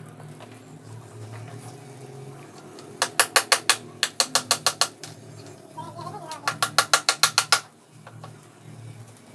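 Ratchet wrench clicking in three quick runs of rapid, evenly spaced clicks, as a fastener is turned.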